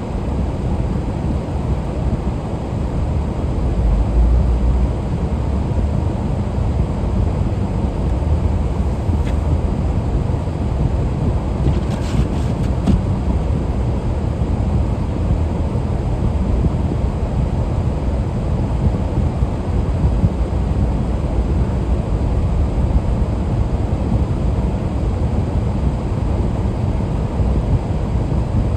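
Steady low rumble of a vehicle being driven, engine and road noise heard from inside the cab.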